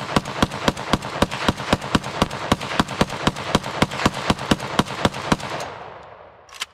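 An AK-pattern rifle firing a rapid string of shots, about five a second. The string stops about five and a half seconds in, and one more report follows near the end.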